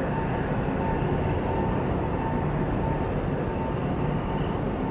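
Steady low engine rumble from a boat on the water, with a faint steady whine running through it.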